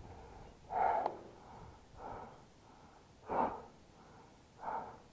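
A person breathing hard close to the microphone, four loud breaths about a second and a quarter apart, with a brief click about a second in.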